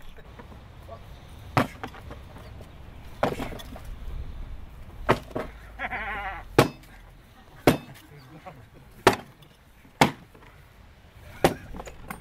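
Eight sharp knocks at uneven intervals, blows of weapons on shields in a Viking reenactment fight. A sheep bleats once, about six seconds in.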